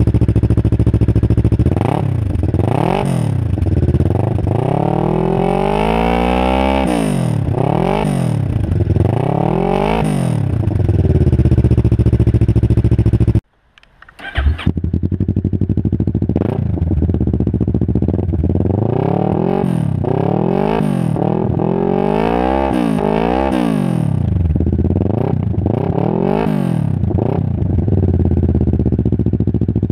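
Kawasaki ER-6f (Ninja 650R) 649 cc parallel-twin, cold, idling and blipped through a series of throttle revs, each a quick rise and fall in pitch, through a dual IXIL under-engine exhaust. For the first half the exhaust's dB-killer baffle is fitted; after a short break about halfway the engine runs and is blipped again with the dB killer removed.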